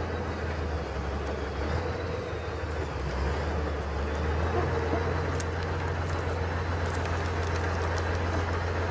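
Off-road truck engine running with a steady low drone, its pitch stepping up slightly about four seconds in, with small knocks and rattles over it.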